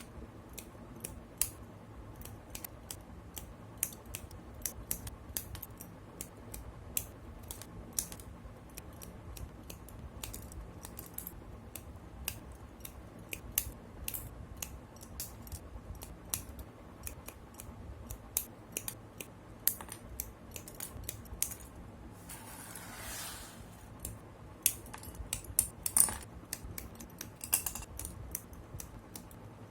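Plastic model kit parts being handled and cut from their runners with nippers: a steady run of small plastic clicks and snips, then a brief swish and one sharper snap near the end.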